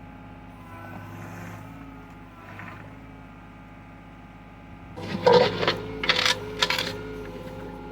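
Excavator engine idling steadily, with three or four loud clanks and scrapes, likely metal on metal, about five to seven seconds in.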